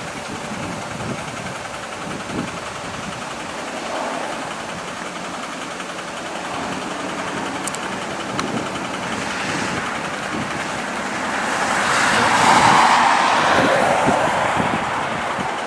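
Heavy trucks' diesel engines running in the distance, a Kenworth T909 prime mover and a Mack Titan pull truck moving an oversize load, under wind buffeting the microphone. A louder rush swells up about three-quarters of the way through, then eases.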